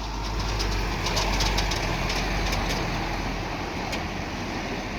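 Heavy truck engine running steadily with a low rumble, swelling slightly a second or so in, with a few faint ticks over it.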